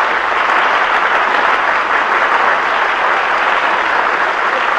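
Radio studio audience applauding steadily.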